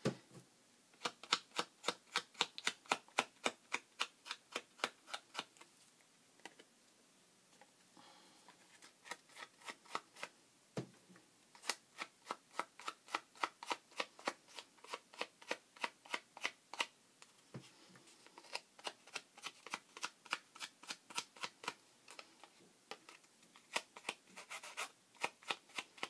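Fine-tip glue bottle dabbed along the edges of a cardstock tag: a quick run of light taps and clicks, about three or four a second, with a pause of a couple of seconds about six seconds in.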